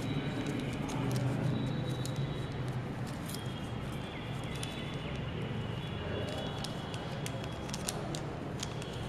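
Paper being folded and creased by hand: faint rustling with scattered small clicks, more of them in the second half, over a steady low background hum.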